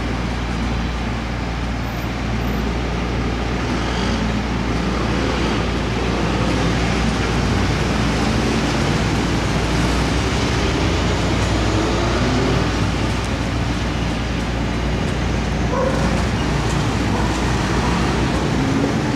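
Helicopter fitted with crop-spraying booms flying low overhead: a steady, loud rotor and engine noise that grows a little louder about six seconds in as it approaches.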